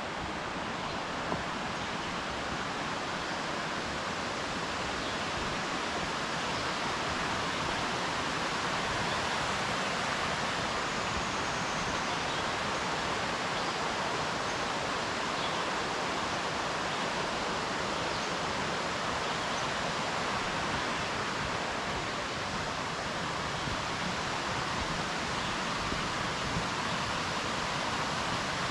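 Steady rush of a fast-flowing mountain stream, growing slightly louder over the first several seconds.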